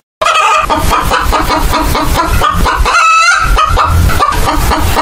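Domestic hens clucking in a rapid, continuous stream of short calls, starting after a brief silent gap at the very start.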